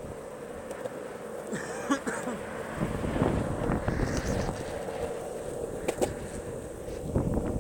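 Longboard wheels rolling over asphalt with a steady hum, mixed with wind buffeting the microphone, and a sharp click about six seconds in.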